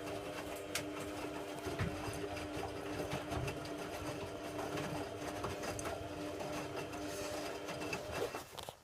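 A small electric motor humming steadily at one pitch, with light clicks and knocks over it, that cuts off abruptly near the end.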